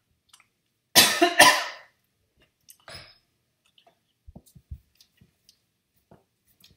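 A man coughs twice in quick succession about a second in, with a softer cough near three seconds, followed by a few faint low thumps.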